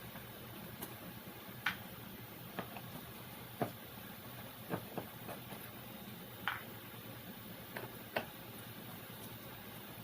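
A dozen or so light clicks and taps at irregular intervals, over a steady low background hum.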